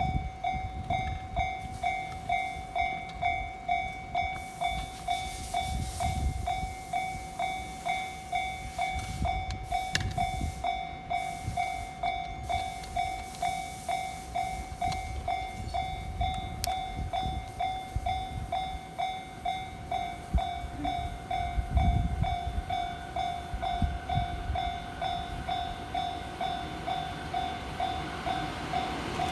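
Japanese level-crossing warning bell ringing in an even rhythm of about one and a half dings a second, signalling that a train is approaching. A low rumble comes about three quarters of the way through, and near the end the noise of the oncoming train rises under the bell.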